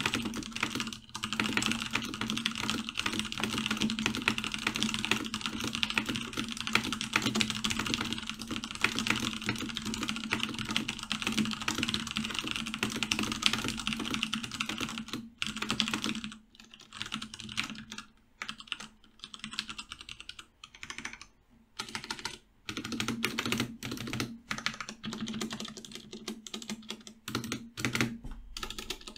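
Typing on a Cooler Master MasterKeys Pro S RGB mechanical keyboard whose switches are still unlubricated, three years old. The first half is a fast, steady stream of keystrokes; about halfway through it slows to scattered keypresses with short pauses.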